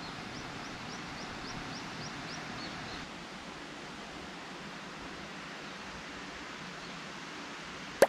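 Outdoor ambience with a steady hiss, over which a bird repeats a row of about eight short, high, rising notes during the first few seconds. A sharp click comes right at the end.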